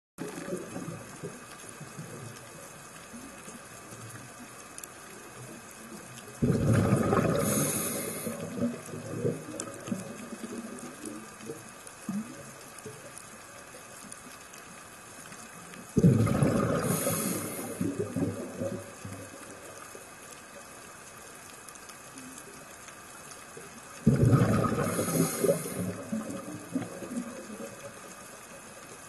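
Scuba diver's exhaled bubbles from the regulator, heard underwater, bursting out three times about nine seconds apart. Each burst starts suddenly and fades over a couple of seconds.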